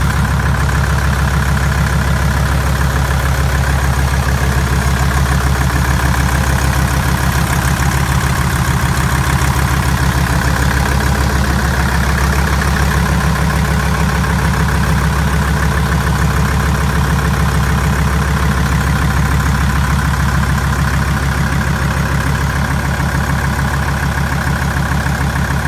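Deutz F5L912 five-cylinder air-cooled diesel engine idling at a steady, even speed.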